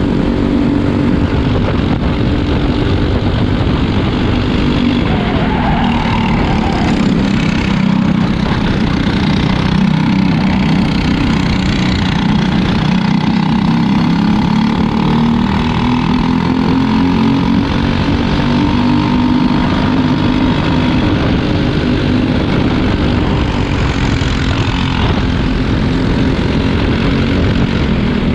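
Onboard sound of a Briggs & Stratton LO206 single-cylinder four-stroke kart engine racing, its pitch rising and falling slowly with the throttle through the corners. The engine of another kart running close ahead is mixed in.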